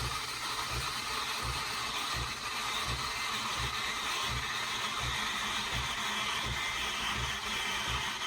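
Breville Oracle Jet's automatic steam wand frothing milk in a jug: a steady steam hiss with a low pulsing thump about twice a second.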